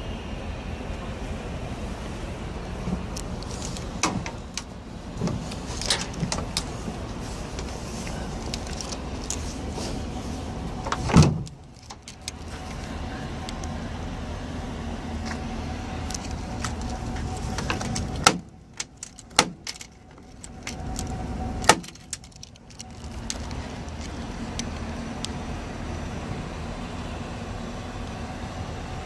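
Chevrolet Silverado pickup's engine idling steadily, with clicks and knocks from handling. There is a loud thump about eleven seconds in, and a few sharp clicks later on, while the rumble drops away briefly twice.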